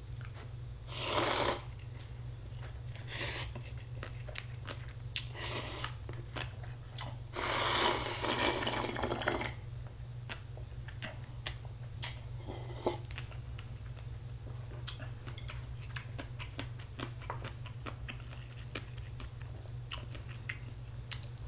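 A person slurping instant ramyun noodles and broth: several short slurps in the first few seconds and a longer one about eight seconds in, then chewing with small wet mouth clicks. A steady low hum runs underneath.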